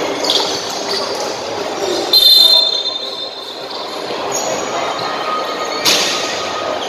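Live basketball game in a large echoing hall: crowd chatter and the ball bouncing on the court. A short high squeal about two seconds in is the loudest sound, and there is a sharp bang near the end.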